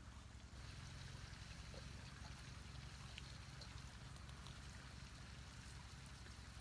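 Faint steady rush of a shallow stream flowing, with a few light ticks.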